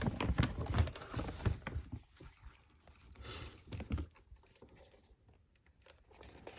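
Faint clicks and rustling from plastic switch and socket fittings being handled and turned over, louder in the first two seconds and then sparse, with a short hiss about three seconds in.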